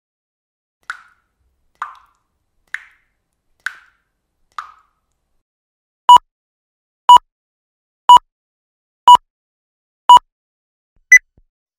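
Intro sound effects: five soft plops about a second apart, then five short, loud electronic countdown beeps, one a second, counting down with the numbers 5 to 1, and a last quieter, higher blip.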